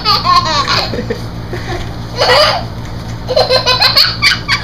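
People laughing hard and high-pitched, in several bouts of quick pulsing laughs.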